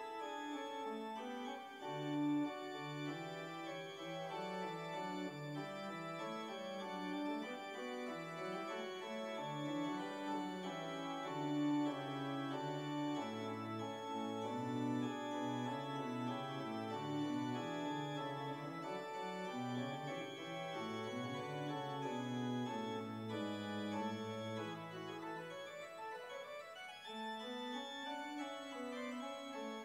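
Organ postlude: held chords over a slowly moving bass line, the notes changing every second or so.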